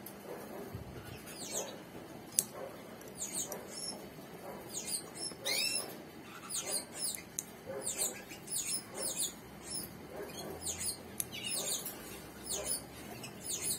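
Red canaries chirping in an aviary: many short, high, downward-sliding chirps following one another. One sharp click comes about two and a half seconds in.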